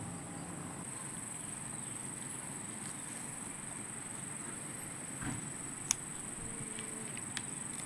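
Steady high-pitched drone of insects, with a few faint clicks and one sharp click about six seconds in.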